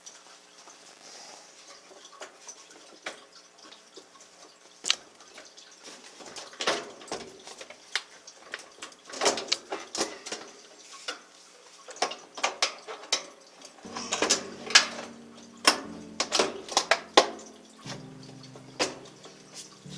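Irregular metallic clanks, clicks and knocks of washing-machine cabinet parts and hand tools being handled and fitted together, thickest in the second half.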